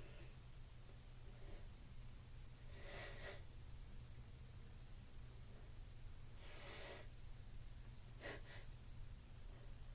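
A woman's faint, gasping breaths through the nose and mouth, four short ones: a sneeze building. A low steady hum runs underneath.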